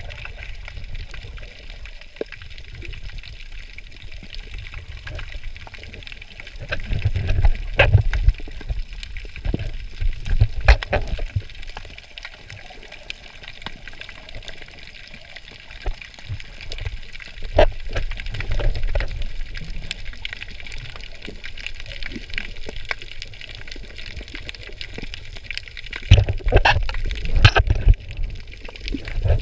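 Water heard through a camera held underwater: a steady hiss with muffled sloshing surges now and then, and a burst of splashing near the end as the camera breaks the surface.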